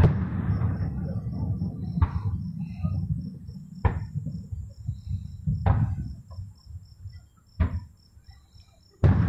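Aerial fireworks shells bursting, six sharp bangs about two seconds apart, each followed by a low rumble. Crickets chirp steadily in a fast, even pulse.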